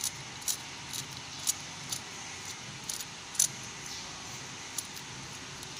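Thin metal tool clicking and scraping against a laser cutter's metal lens tube and lens retainer, about nine light, sharp metallic ticks at uneven intervals, the loudest about three and a half seconds in, over a steady hiss.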